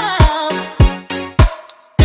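Background music with a steady kick-drum beat and a wavering sung or lead melody. It cuts out briefly near the end.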